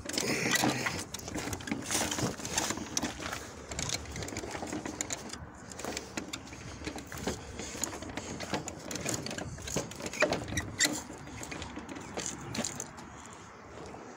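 Footsteps on gravel with irregular clicks and rattles from car parts carried by hand, busiest in the first few seconds.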